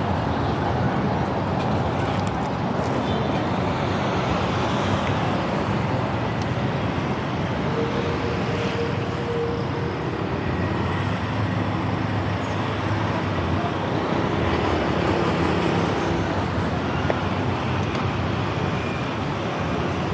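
Steady road traffic noise on a busy city street, with cars and motorbikes going by.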